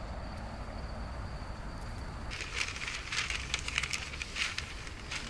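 Newspaper rustling and crinkling in irregular bursts, starting about two seconds in, as sheets are unfolded and spread out by hand.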